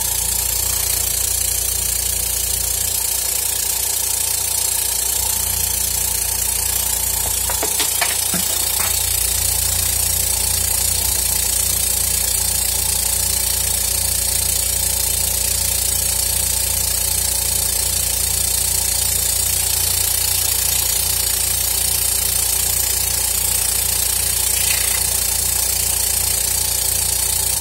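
Small Schulz Air Plus diaphragm air compressor switched on, running with a steady hum and even pulsing from its electric motor and diaphragm pump, then cut off abruptly near the end. It runs smoothly after repair with a cleaned valve plate and a replacement diaphragm, and it is called perfect.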